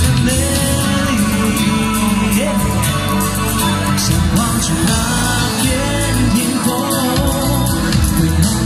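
A male singer sings a Mandarin pop song live into a handheld microphone, with musical accompaniment.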